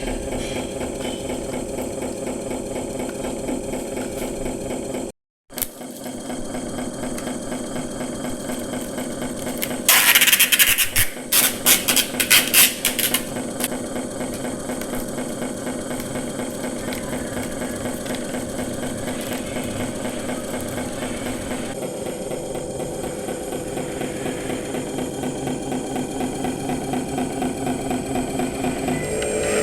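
Huina RC truck's electric motor and gearbox whirring steadily with an even pulse as it pulls a heavy load. About ten seconds in comes a few seconds of loud, rasping noise in uneven bursts, and the sound cuts out briefly near the five-second mark.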